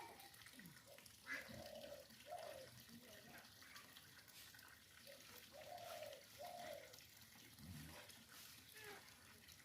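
Near silence with faint, short animal calls: brief hoots, mostly in pairs, repeating a few times.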